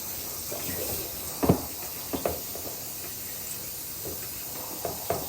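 Warm tap water spraying steadily as a hen is rinsed during her bath, with a sharp thump about a second and a half in and a smaller one just after.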